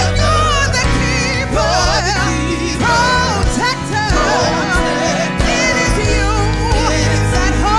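Live gospel worship song: a lead woman singer and a group of backing vocalists singing with a band of keyboard, bass guitar and drums, the voices held and wavering on long notes.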